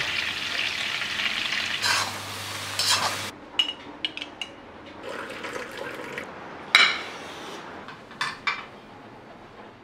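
Chicken pieces sizzling in hot oil in a pan for about three seconds, cutting off suddenly. Then scattered clinks and taps of kitchen utensils against pans and dishes follow, with one loud click about seven seconds in.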